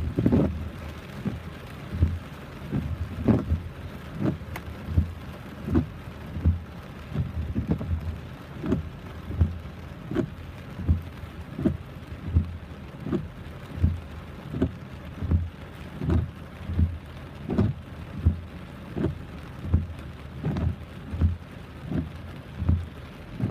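Rain noise with a steady low thump repeating about every three-quarters of a second.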